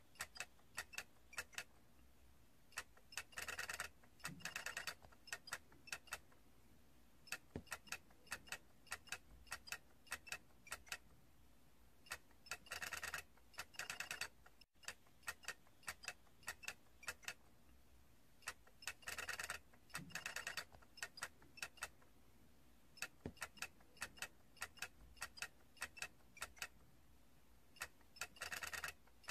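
Small plastic mechanical toy of stacked Toy Story character heads clicking as its parts turn. Single ticks come about once or twice a second, and every six to nine seconds there is a run of rapid clicking lasting a second or so.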